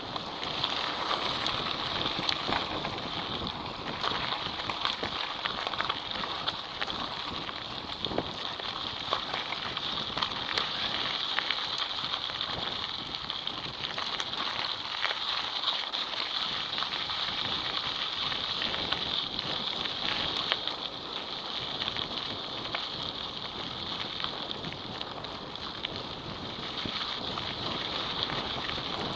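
Mountain bike rolling fast down a loose gravel and dirt track: tyres crunching over stones with a continuous crackle of small knocks and rattles, under wind noise and a steady high hiss.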